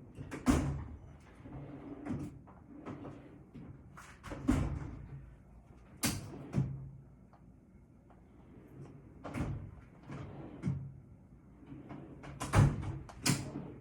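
Drawers and cupboard doors being opened, shut and rummaged through: a string of sharp knocks and clatters, about eight in all, with the loudest near the start and near the end.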